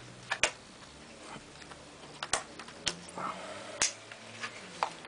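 A handful of sharp, irregular plastic clicks and knocks from a Logitech G19 keyboard being handled and set down.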